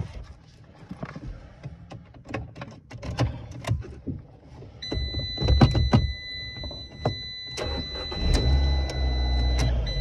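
Clicks and knocks of hands working at the clutch pedal and its newly fitted clutch switch under a Fiat 500's dash. About five seconds in, a steady high electronic beep starts and holds for about five seconds. A low steady rumble, the loudest sound, builds over the last two seconds.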